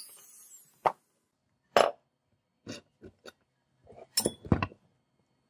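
A small rotary tool winds down, then about seven sharp metal clicks and knocks as a bench vise is opened and a metal lighter part is taken out and handled. The loudest knocks come near two seconds in and just after four.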